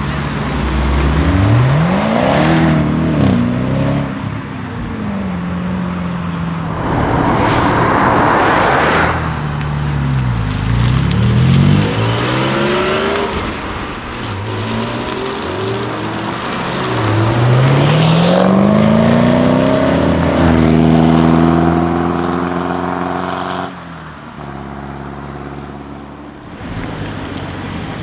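Jaguar F-Type SVR's supercharged 5.0-litre V8 accelerating hard in several pulls, its pitch rising steeply each time and falling back between them. There is a noisy rush about eight seconds in, and the sound gets suddenly quieter about 24 seconds in.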